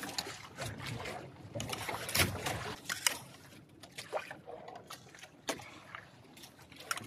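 Spoons clinking and scraping on plates in irregular sharp clicks, the loudest about two and three seconds in, over the wash of sea waves against a small outrigger boat.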